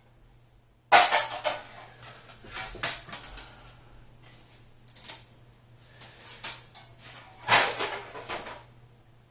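Kit parts being handled and set down: a sudden clatter about a second in, scattered knocks and rustling, then another burst of clattering near the end.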